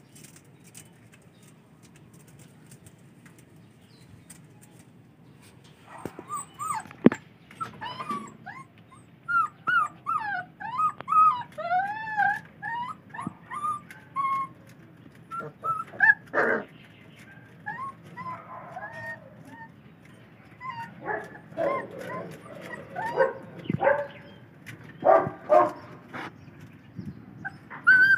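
Four-week-old Belgian Malinois puppies whimpering and yipping in many short, bending whines, starting about six seconds in, with a few louder, sharper yelps among them.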